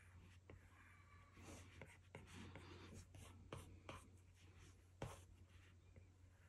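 Faint scratching of an Apple Pencil tip stroking across an iPad Pro's glass screen, with several light, irregular taps as the tip touches down.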